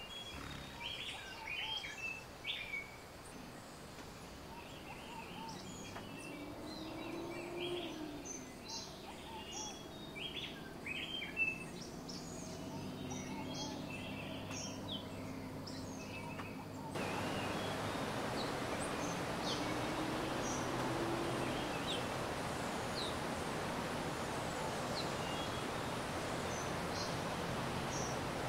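Small birds calling with short, high chirps over a faint low hum. About two-thirds of the way through, the sound cuts abruptly to the louder, steady rush of a mountain stream, with a few bird notes still over it.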